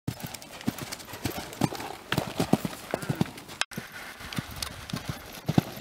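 Hoofbeats of a young horse cantering under a rider on a sand arena: a run of dull, even thuds. There is a short break about two-thirds through.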